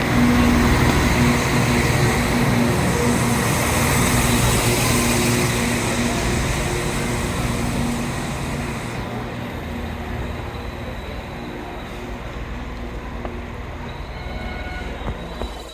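Diesel train passing and moving away, its engine note and running noise loud at first, then fading steadily.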